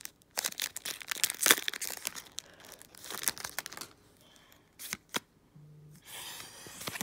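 Foil wrapper of a Pokémon trading card booster pack crinkling and tearing as the pack is opened and the cards are pulled out, for about the first three and a half seconds. Then a few sharp clicks and a rustle as the cards are handled.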